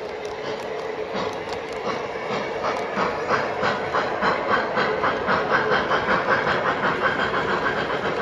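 O gauge model of a Southern PS-4 streamlined steam locomotive running past with its sound system chuffing in an even beat of about three a second, loudest as the engine goes by, over the rumble and clatter of wheels on the track and a steady hum.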